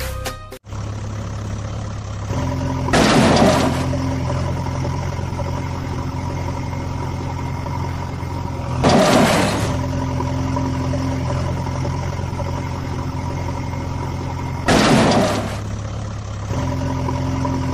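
A vehicle engine idling steadily, with a loud short hiss that falls in pitch about every six seconds, three times.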